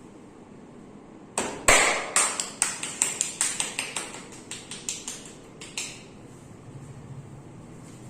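Percussive massage strokes: hands slapping on bare skin in a quick run of about seventeen sharp hits, roughly four a second, loudest at first and fading out.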